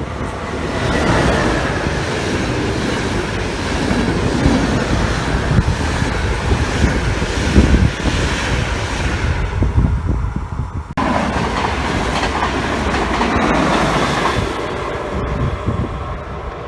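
A train passing close by, its wheels clattering over the rails. The sound changes abruptly about two-thirds of the way through.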